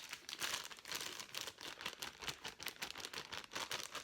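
Plastic snack packaging crinkling as it is handled, a rapid, irregular run of crackles.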